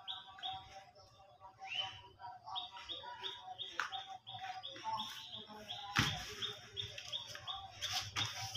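A bird singing long runs of short, falling chirps, about three or four a second. A sharp thump about six seconds in is the loudest sound, and there is a second knock near the end.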